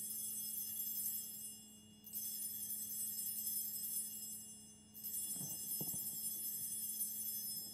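Altar bells (sanctus bells) shaken three times, about three seconds apart, each a bright jangle of high bells that rings on and fades. They mark the elevation of the chalice at the consecration.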